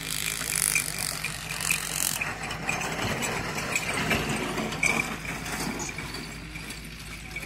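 A racing bull pulling a light two-wheeled cart over ploughed dirt: a steady clattering rattle of the cart and hooves.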